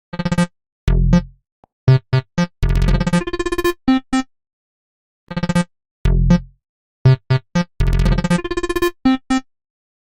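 An Android phone ringtone: a short synthesizer-keyboard melody of quick separate notes, played twice over, each time lasting about four seconds, with about a second's gap between.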